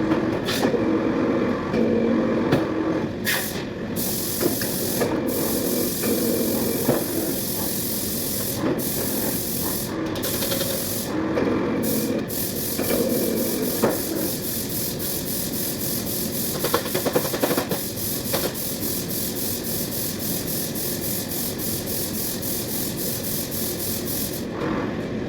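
CNC sheet-metal machine running with a steady hiss like blowing gas. From about halfway, a fast, even pulsing runs on top.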